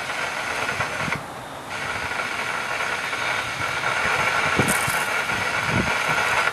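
Distant diesel locomotive horn on an approaching CSX coal train: a blast that ends about a second in, then after a short pause a second long blast lasting about five seconds that cuts off suddenly.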